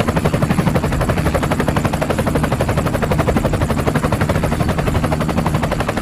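Helicopter rotor blades chopping fast and steadily over a deep rumble.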